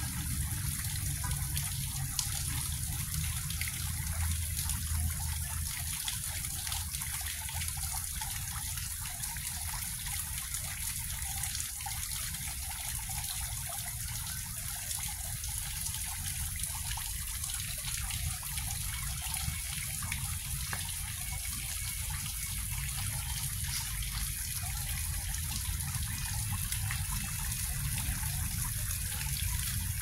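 Tiered stone fountain running steadily, its water falling and splashing into the stone basin below.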